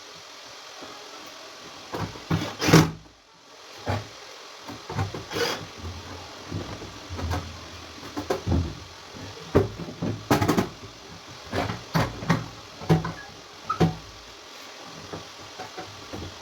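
Irregular knocks, clicks and handling noises from work on a panini press, with one louder knock a little under three seconds in.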